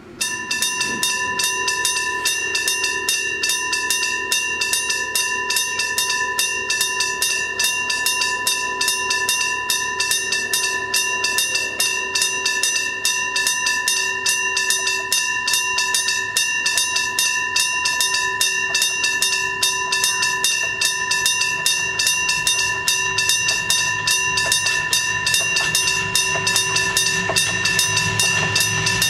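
Level crossing warning bell switching on suddenly and ringing in a rapid, steady repeat, the signal that a train is approaching. Near the end the rumble of an approaching KiHa 200 diesel railcar rises under it.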